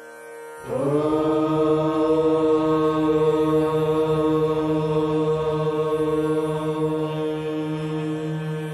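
A long chanted prayer note starts about half a second in with a slight upward slide, then holds on one steady pitch.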